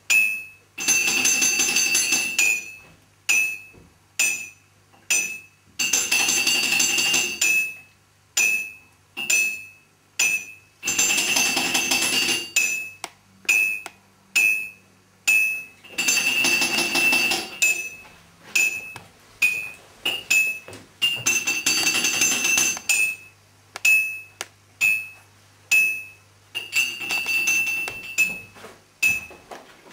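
Experimental soundtrack music: a repeating loop of short, bright clinking hits with a ringing tone, and a longer jangling stretch about every five seconds.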